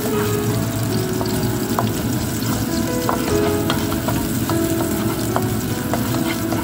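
Sliced garlic and shallots sizzling in hot oil in a nonstick frying pan, stirred with a spatula that taps and scrapes the pan now and then.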